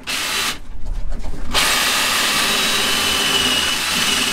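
Cordless drill boring into fibreglass: a brief burst, a drop for about a second, then a steady run with a high whine.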